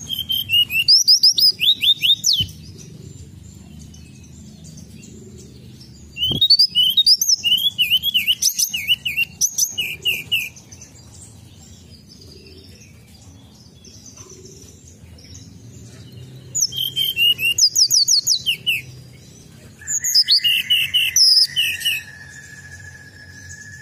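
Hill blue flycatcher (tledekan gunung) singing in four bursts of rapid, varied high chirps and trills, each a few seconds long with pauses between. Near the end a steady high, whistle-like tone begins and holds.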